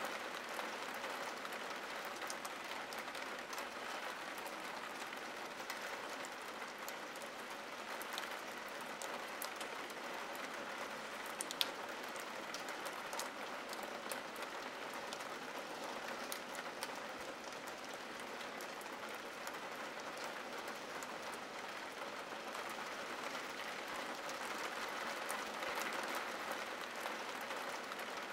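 Steady rain falling on window glass: an even hiss made of many small drop ticks, with one sharper tap about eleven and a half seconds in.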